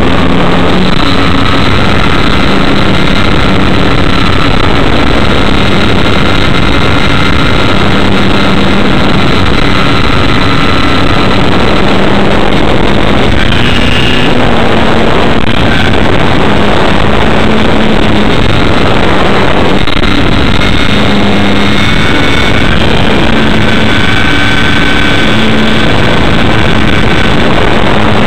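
Model airplane's motor and propeller running in flight, picked up by an onboard camera: a very loud steady drone mixed with wind rushing over the microphone. Its pitch drifts up and down a little through the flight.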